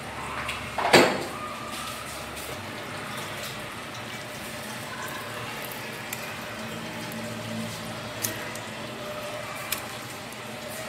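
Liquid sloshing and bubbling in a pot of goat broth as a metal spoon stirs meat in a wire strainer set in it, with a few light clicks of metal on metal. A loud, short scrape-like sound about a second in is the loudest event.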